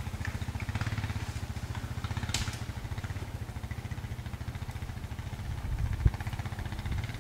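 Four-wheeler (ATV) engine running steadily as it is driven slowly through the woods, a low, rapid, even pulsing. A brief click about two and a half seconds in and a single thump about six seconds in.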